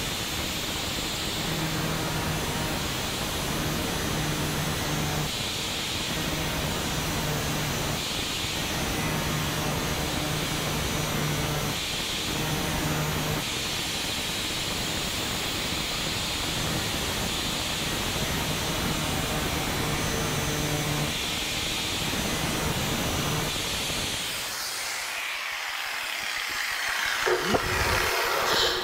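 Hand-held angle grinder with a thin disc running steadily while grinding the point of an 11.5 mm twist drill bit flatter, a continuous grinding noise of the disc against hardened steel.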